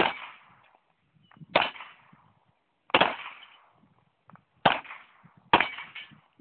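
Handgun shots from two shooters firing at targets in a timed dueling competition: five sharp shots irregularly spaced one to a second and a half apart, each trailing a short echo, with a few faint clicks in between.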